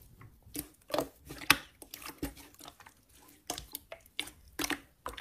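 Clear slime being pressed and squished by hand, giving a string of irregular sharp clicks and pops.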